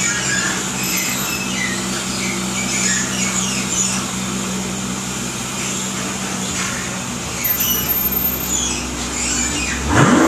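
Mercedes-Benz SL65 AMG twin-turbo V12 idling steadily through a catless 3-inch stainless header-back exhaust with an X-pipe and MagnaFlow mufflers, with high chirping squeaks over it. Right at the end the engine is blipped and the exhaust note rises sharply.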